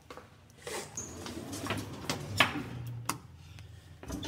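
A string of sharp clicks and knocks, the loudest about two and a half seconds in, with a brief high tone about a second in.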